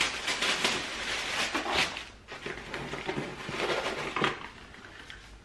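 Tissue paper and packaging rustling and crinkling as items are taken out of a cardboard subscription box, busiest in the first two seconds and fainter after.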